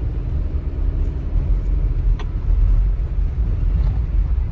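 Steady low road rumble heard from inside the cabin of a 2019 Subaru Forester driving a sandy dirt trail, with a single sharp click about two seconds in.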